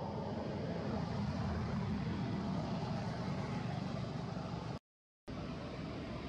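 Steady background rumble and hiss with no distinct events. It cuts out to silence for about half a second, roughly five seconds in.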